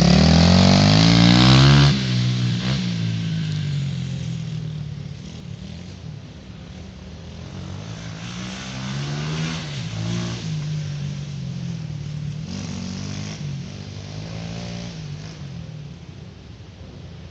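YCF 125cc pit bike's single-cylinder four-stroke engine revving hard as it passes close by. It drops away suddenly about two seconds in, then carries on at a distance, rising and falling in pitch with the throttle and gear changes and swelling twice more as the bike comes round.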